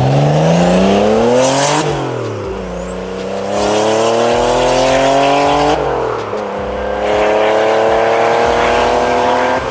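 Porsche 930 Turbo's air-cooled flat-six, fitted with a bigger single turbo, an external wastegate and a free-flowing exhaust, accelerating hard through the gears. The engine pitch climbs, falls at a gear change about two seconds in and again about six seconds in, then climbs once more. A faint rising whistle and a burst of hiss come near the first shift.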